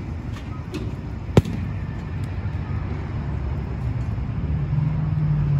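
One sharp, ringing crack of a metal baseball bat hitting a pitched ball, about a second and a half in, over a steady background hum. A low drone comes up near the end.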